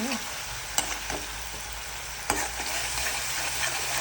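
Vegetables and spices for poha sizzling in a pan of mustard oil with a splash of water, with a steady hiss and a few sharp clicks of the spoon being stirred against the pan.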